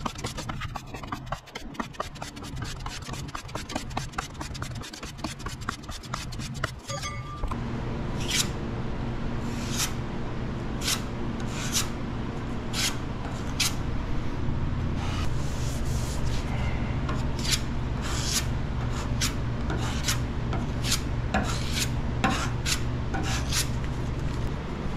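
Hand sanding of primed car bodywork with a sanding block, a rubbing, rasping sound. It starts as a fast run of back-and-forth strokes, then about seven and a half seconds in a steady hum comes in under slower, separate strokes.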